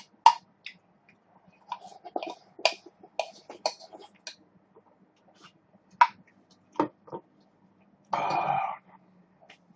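Close-up mukbang eating sounds: scattered sharp clicks of utensils against a bowl and small chewing noises, over a faint steady hum. A short, louder noisy burst about eight seconds in.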